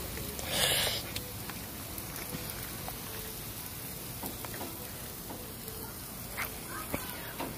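Chicken sizzling on a hot grill grate as it is basted with barbecue sauce, a steady hiss with a brief louder burst about half a second in and a few small clicks.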